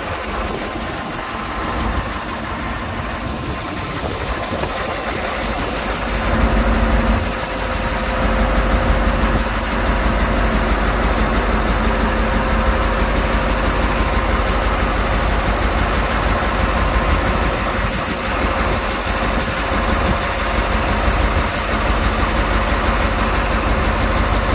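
Mercedes-Benz 2626 K's V8 diesel engine idling steadily, heard close up. It gets somewhat louder about six and a half seconds in and holds there.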